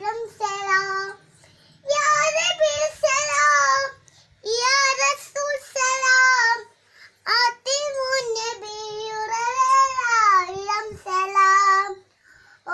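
A child's high voice singing a lullaby in long, drawn-out phrases with wavering held notes, broken by short pauses for breath.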